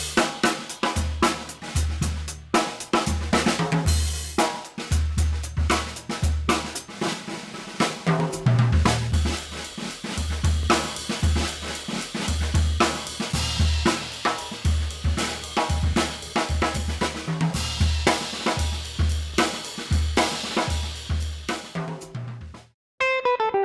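Drum kit playing a steady groove of kick, snare, hi-hat and cymbals, heard through a valve-style compressor plugin. The drums cut off shortly before the end.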